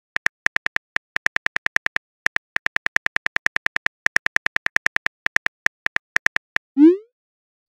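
Phone keyboard click sounds in quick succession as a message is typed, about six or seven clicks a second with two brief pauses, stopping about six and a half seconds in. A short rising swoosh follows near the end as the message is sent.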